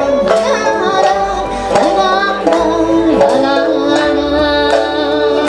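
A woman singing an Okinawan song live, accompanying herself on the sanshin, the Okinawan three-stringed lute, whose plucked notes sound under her voice.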